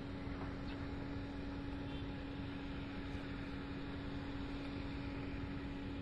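A steady hum at one constant pitch, like a distant motor running, over an even background hiss.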